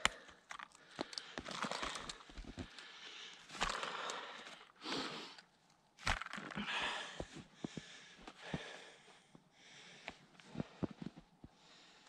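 Snow crunching and clothing rustling as a person in gloves and a heavy jacket shifts and climbs about in a deep trench of packed snow, in irregular bursts with short crackles.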